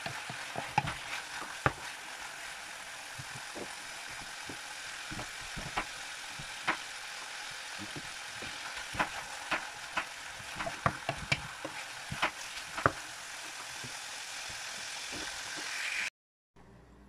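Diced meat sizzling in a hot oiled skillet as it browns, a steady hiss with frequent sharp pops and clicks, stirred with a wooden spatula at the start. The sound cuts off suddenly near the end.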